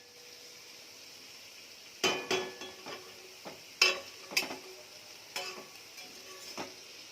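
A metal utensil clinking and scraping against a metal cooking pan about a dozen times, in irregular strikes with a short ring, over a faint steady hiss from the pan of cooked snake gourd.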